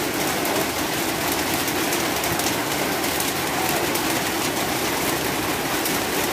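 Heavy rain falling: a steady, even hiss of drops.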